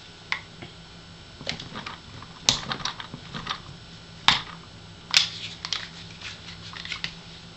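Metal clicks and clacks of a Sar Arms B6P pistol being field-stripped by hand: the slide stop is pushed out and the slide worked off the frame. Three sharper clacks stand out among lighter ticks.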